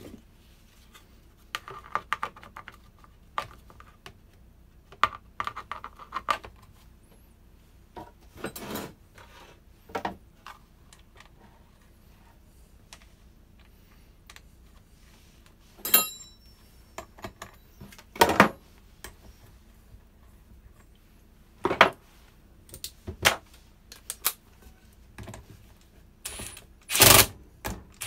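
Intermittent clicks, short rattles and sharp metal knocks as chainsaw parts and hand tools are handled during reassembly, with two louder knocks near the end.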